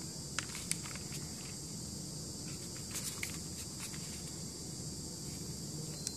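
Light clicks and taps of fingers handling the plastic casing of a Reliance Wi-Pod pocket Wi-Fi router, with a couple of clicks about half a second in, a few around three seconds and one near the end, over steady hiss.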